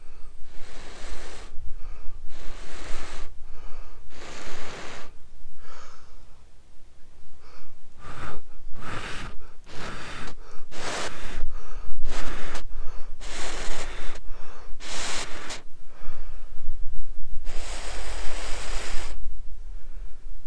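Short, repeated breaths blown onto a cramp ball fungus (King Alfred's cake) held in the hand, to nurse an ember in it: about a dozen puffs, with one longer blow near the end.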